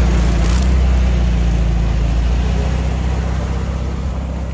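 Volkswagen Karmann Ghia's air-cooled flat-four engine running at low speed as the car pulls slowly away. Its steady low note fades gradually.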